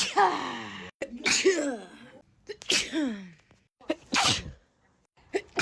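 A person's sneezing fit: a rapid run of about four sneezes, roughly one every second and a half, several ending in a voiced 'choo' that falls in pitch, with short sharp intakes of breath between them.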